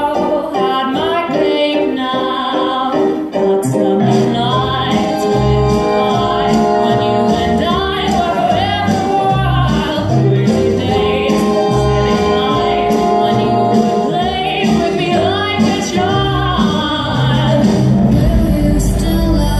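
Music with a woman singing. A pulsing bass beat comes in about four seconds in.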